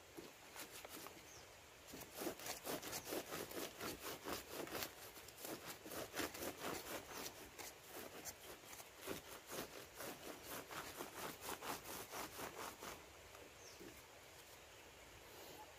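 Quick rustling strokes of a bundle of green leaves worked against a kithul palm's hanging flower cluster, several strokes a second. The strokes start about two seconds in and stop near the end.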